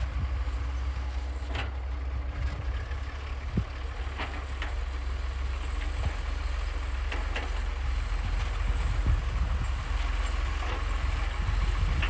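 Heavy diesel construction machinery running with a steady low rumble, with occasional sharp metallic knocks and clanks.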